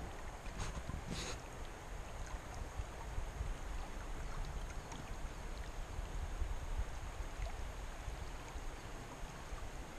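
Shallow river running over a gravel bed: a steady rushing of flowing water, with a short sharp sound about a second in.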